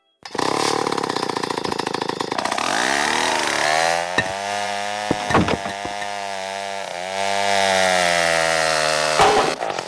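A small motorised tool buzzing with a fast rattle, then rising in pitch over about a second and running at a steady pitch, with a few sharp clicks.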